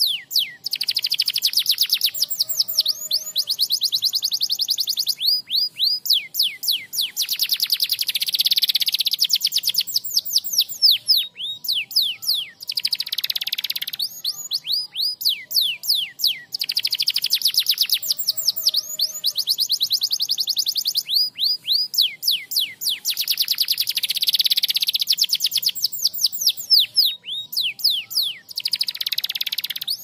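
Domestic canary singing: long runs of rapid descending whistled notes and fast, dense trills, with short gaps between phrases. The same sequence of phrases comes round again about every ten seconds.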